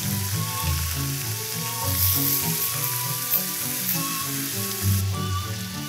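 Strips of pork belly sizzling in hot oil in a frying pan as they brown and are turned over, with background music playing.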